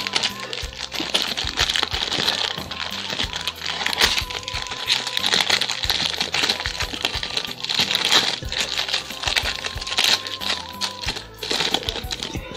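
Clear plastic bag crinkling and rustling with many small clicks as it is handled and opened to take out an amplifier circuit board, over background music.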